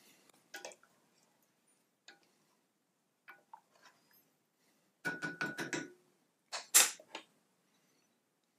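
A spoon clinking and scraping against a cooking pot as soup is stirred: scattered light clicks, a quick run of about six taps with a faint ring about five seconds in, and a sharper single knock just before seven seconds.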